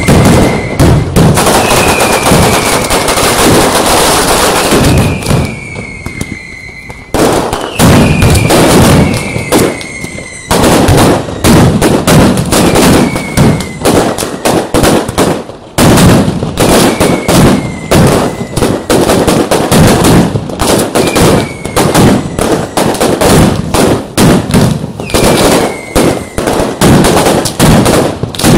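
Mascletà barrage: a dense, rapid rattle of ground-level firecrackers going off in continuous strings, cut through every couple of seconds by short falling whistles from whistling fireworks. The barrage thins around five to seven seconds in, then comes back at full strength all at once.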